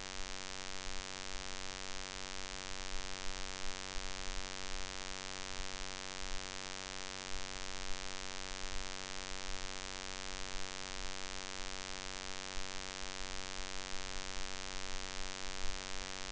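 Steady electrical hum over a constant hiss.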